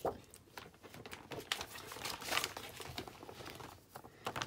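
Sheets of paper and cardstock rustling and sliding against each other as they are shuffled by hand, in a string of irregular soft crinkles and scrapes.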